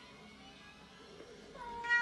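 A domestic cat meowing once, a single drawn-out meow beginning about one and a half seconds in.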